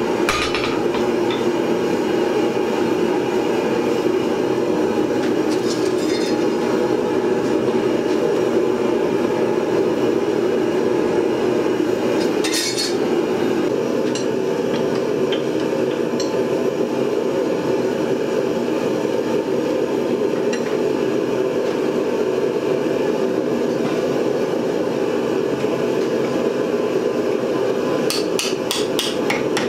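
Steady roar of the forge, with a few scattered hammer strikes on steel, then a quick run of small ball-peen hammer blows near the end as the hot tenon on the round-bar stem, held in a vise, is upset over like a rivet.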